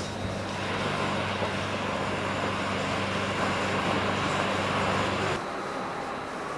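Steady low hum of a passenger train standing at the platform, over the general noise of a busy station platform. The hum cuts off abruptly about five seconds in, leaving quieter, plainer station ambience.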